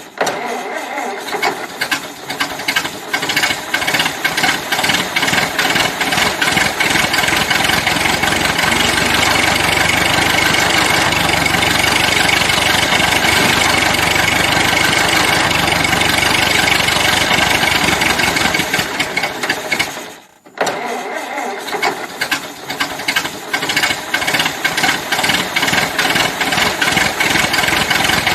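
Old car engine starting: uneven firing for a few seconds as it catches, then running steadily. Just after twenty seconds in, the sound dies away to a moment of silence, and the engine starts again and runs.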